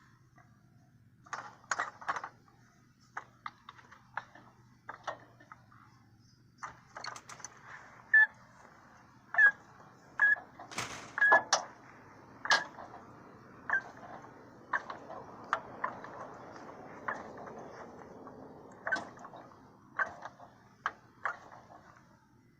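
Hand tools clicking, knocking and clinking on metal while the alternator bolts on a 1987 Nissan Hardbody are worked loose. The clicks come irregularly throughout, with a few short ringing metallic pings and the loudest knocks between about 8 and 12 seconds in.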